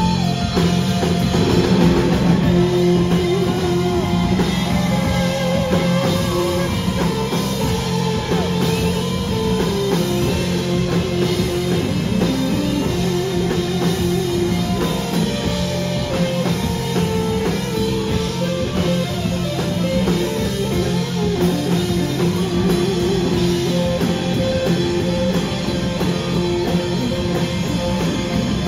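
Live rock band playing an instrumental passage: electric guitars with held and bending notes over a drum kit and strummed guitars.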